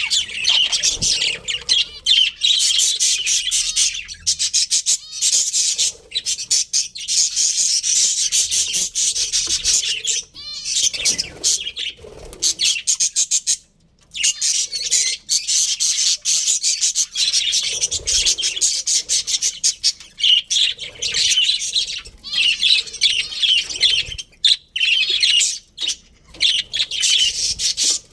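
A colony of budgerigars chirping and chattering continuously, many birds at once, with a short gap about halfway through.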